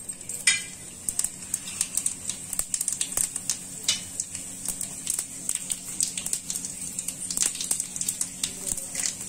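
Cumin and fenugreek seeds frying in hot oil in an iron kadhai for a tadka: a steady sizzle with rapid, irregular popping and crackling, over a faint steady low hum.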